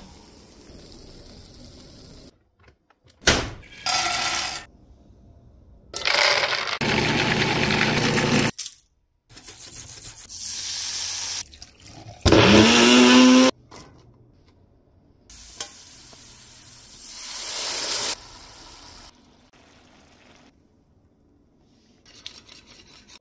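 A string of short kitchen sounds with gaps between them: liquid pouring, a thick sauce being stirred, and other handling noises. About twelve seconds in comes the loudest sound, a personal blender's motor running briefly, its pitch rising as it starts.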